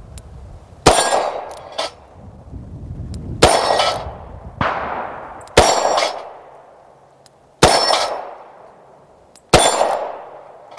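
Rock Island Armory AL9.0 9mm revolver fired five times in double action, one shot about every two seconds, each sharp report ringing out briefly. A fainter, sharp knock follows about a second after each of the first two shots.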